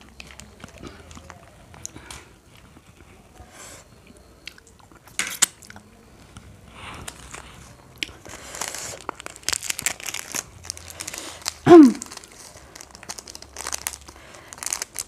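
Small seasoning sachets being torn open, squeezed and crinkled, with scattered crackles and rustles that are busiest in the second half. About twelve seconds in, a brief, loud falling squeal stands out above them.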